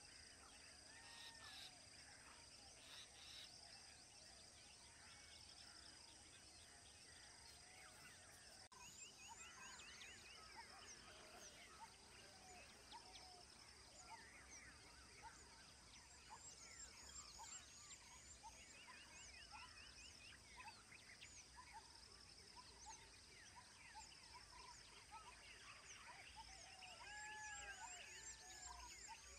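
Faint chorus of many wild birds chirping, trilling and calling over a steady high insect drone, growing busier about nine seconds in.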